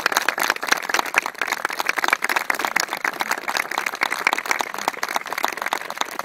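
Small crowd applauding: many hands clapping in a dense, steady run.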